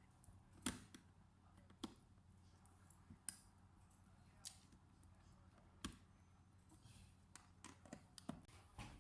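Scattered light clicks and taps, about a dozen at uneven intervals with a small cluster near the end, from laptop parts and tools being handled, over a faint steady low hum.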